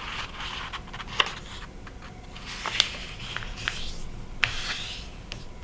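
A sheet of paper being folded and creased by hand: soft rustling and rubbing, with a few sharp crinkles.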